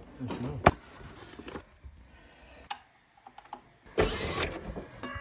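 A cordless drill driver runs in one short burst about four seconds in. A sharp click, the loudest sound, comes just under a second in.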